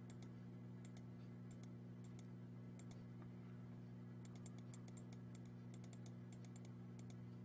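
Near silence: a steady low electrical hum with faint, irregular small clicks, more of them in the second half.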